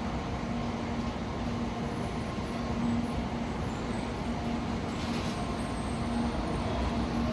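Shinkansen train slowly pulling out of the station: a steady rumble with a low electric hum that comes and goes as the train gathers speed.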